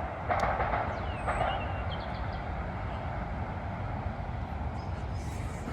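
A train passing, heard as a steady rushing noise that is loudest in the first second or so, with a few faint bird chirps partway through.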